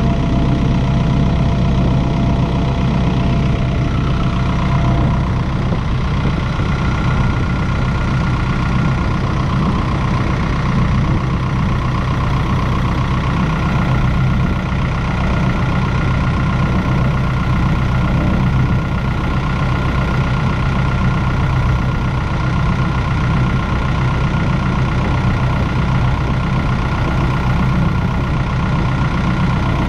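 Diesel engine of a 2013 Wirtgen W 50 DC road milling machine idling steadily, heard up close at the open engine compartment. A thin steady whine sits above the engine note from about four seconds in.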